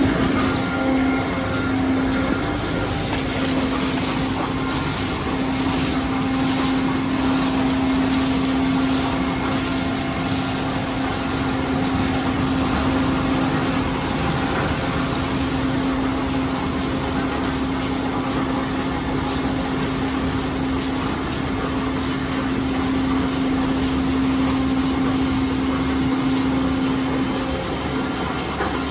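Autec automatic car wash running: its spinning cloth side brushes scrub a car while water sprays, over a steady machine hum from the wash's motors and pumps.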